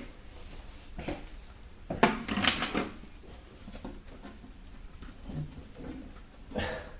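A few clicks and light taps of small plastic parts being handled as a replacement speaker is pressed into a tablet's plastic casing: one about a second in, a short cluster around two to three seconds in, and another near the end.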